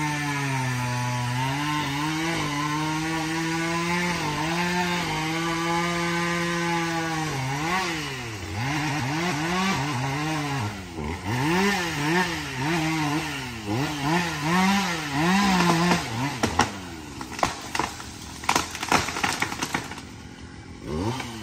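Chainsaw cutting steadily under load, then revved up and down about once a second. About sixteen seconds in come a series of sharp loud cracks as the tree trunk splits (barber-chairs) and the tree comes down. The saw starts revving again right at the end.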